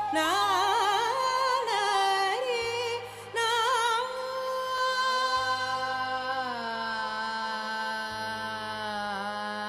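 Indian classical vocal music over a steady drone. For the first few seconds a voice sings quick, wavering ornamented phrases, then it holds one long note that slides down about six seconds in.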